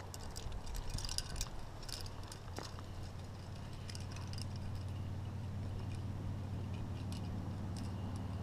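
Carabiners and climbing hardware racked on a harness clinking lightly and irregularly as the climber moves, over a steady low rumble.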